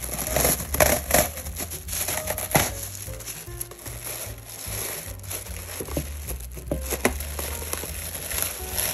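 Plastic food wrap crinkling and crackling as it is pulled from its box and pressed over a glass mixing bowl, with a few sharper crackles.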